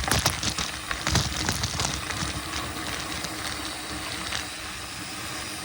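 Mountain bike rolling over a dirt trail: tyre noise with rattling clicks and knocks from the bike over rough ground for the first couple of seconds, then a steadier rolling rush.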